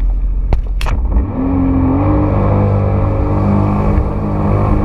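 Jet ski engine running under throttle, its pitch climbing about a second and a half in and then holding steady. Two sharp knocks sound in the first second.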